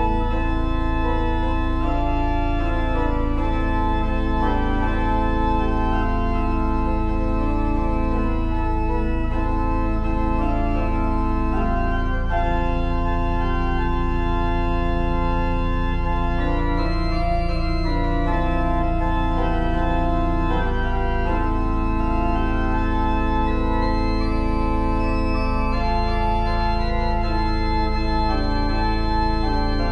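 Organ music: sustained chords over a steady low drone, the notes changing slowly, with no drums.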